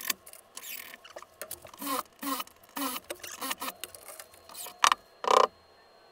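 Scattered short scrapes, clicks and rustles of hands and tools at close range while the shower sidewall is being screwed to the pan, with one louder short buzz a little past five seconds in.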